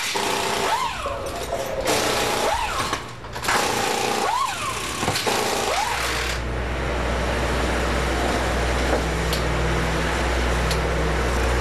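Drag-racing engine revved in short bursts, about one a second, each rising and falling in pitch, then settling into a steady low rumble about six seconds in.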